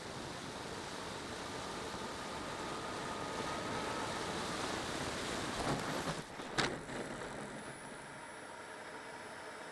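Steady rush of airflow over a camera mounted under the wing of a radio-controlled model aircraft in a fast low pass, swelling slightly and then easing, with one sharp click about six and a half seconds in.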